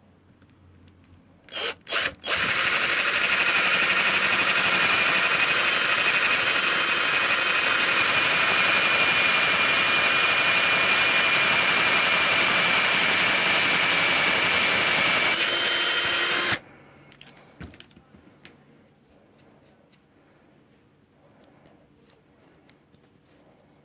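Power drill boring a hole through red deer antler. A few short blips are followed by a steady run of about fourteen seconds with a high whine, which steps up slightly just before the drill stops suddenly. Faint clicks of the antler being handled follow.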